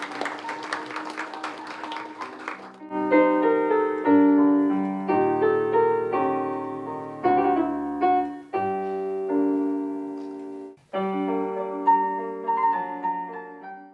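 Applause for the first few seconds, then slow piano chords, each held and left to ring.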